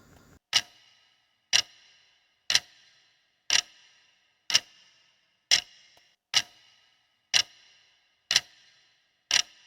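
Clock-tick countdown sound effect: a sharp tick about once a second, each with a short bright ring, marking the time allowed to answer a quiz question.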